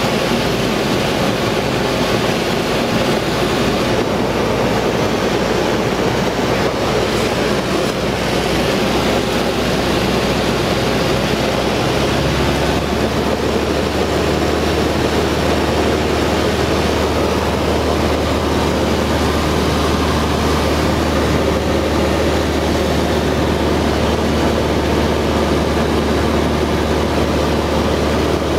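Cessna 172's piston engine and propeller droning steadily in flight, heard inside the cabin. About twelve seconds in, the low drone steps up in pitch and holds there.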